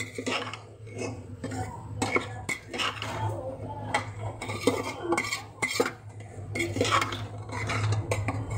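Metal ladle scraping and clinking against the sides and bottom of an aluminium pressure cooker as chopped ridge gourd is stirred and fried in masala, in repeated irregular strokes.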